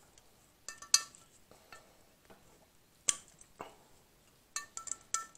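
Sharp metallic clinks in irregular clusters, some briefly ringing, as a metal hand tool knocks against the valve stems and parts of an aluminium cylinder head while the valve seals are worked off.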